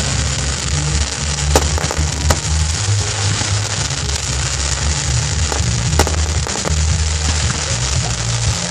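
Fireworks crackling continuously, with a few sharp bangs about a second and a half, two seconds and six seconds in, over music with a steady bass line.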